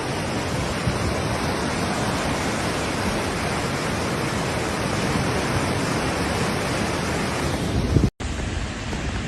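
Rushing floodwater: a steady, loud roar of torrent water. About eight seconds in it cuts off abruptly and a quieter noise follows.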